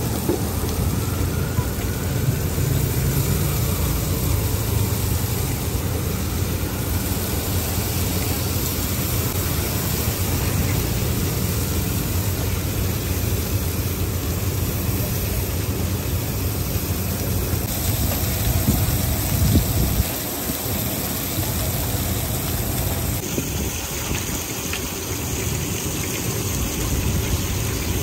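Steady low rumble with an even hiss over it: street-food stall cooking noise, fish frying on a hot griddle over a gas burner. The low rumble drops off briefly about two-thirds of the way through.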